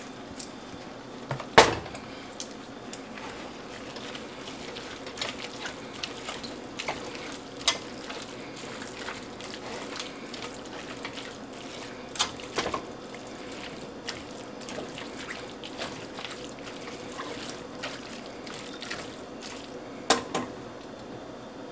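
A silicone spatula stirring shredded chicken and barbecue sauce in a stainless steel pot: a wet, squelching mix over a steady low hiss, with a few sharp knocks and clicks against the pot. The loudest knocks come about a second and a half in, around twelve seconds in and just before the end.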